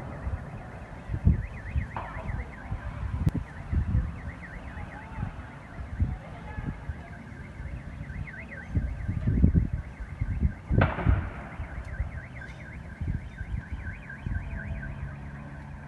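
A car alarm warbling rapidly, over repeated low thuds and rumbles, with one sharp distant bang of gunfire or an explosion about eleven seconds in.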